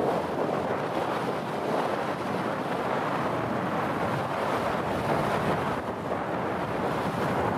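Wind buffeting the microphone, a steady rushing noise with no engine note standing out.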